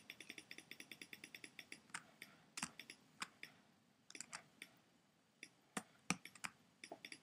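Faint clicking from a computer keyboard and mouse while zooming out: a rapid run of about ten clicks a second for the first two seconds, then scattered single clicks.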